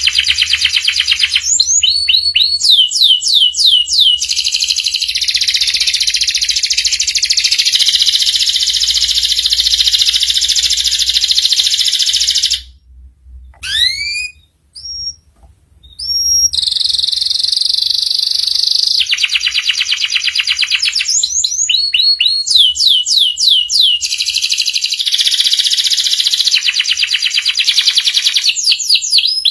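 Domestic canary singing a long, loud song of fast rolling trills and runs of rising whistled sweeps, with a short break about halfway through where only a few single upslurred whistles sound.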